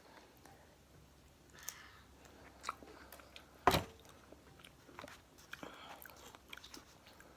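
Close-up chewing and biting on chicken wings: soft wet mouth sounds with scattered small clicks, and one sharper, louder click about halfway through.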